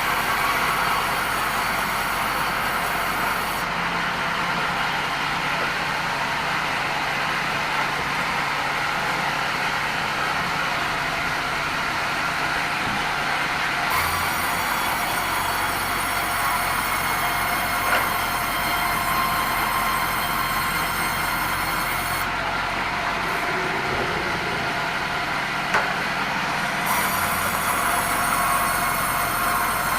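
Band sawmill running steadily through red meranti wood, a continuous machine noise with a high whine over it, and a couple of light knocks partway through.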